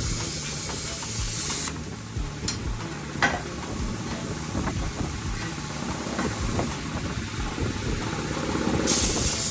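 Handheld plasma cutter hissing as it cuts through square steel tube, stopping a little under two seconds in. Clanks of the steel tube being set down and turned on the metal table follow, over a steady low hum, and the cutter starts hissing again near the end.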